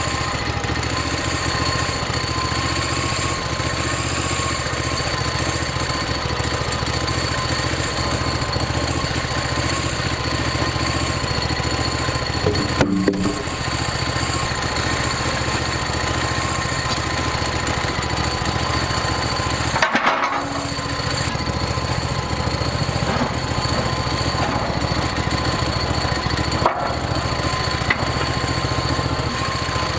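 Engine-driven portable sawmill running steadily while sawing a log, with a constant engine drone and a steady high whine. The noise is briefly broken twice, about 13 and 20 seconds in.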